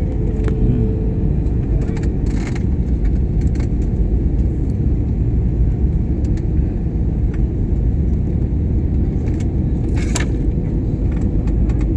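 Steady cabin noise of an airliner in flight: a continuous low rumble of engines and airflow, with a couple of brief light rattles.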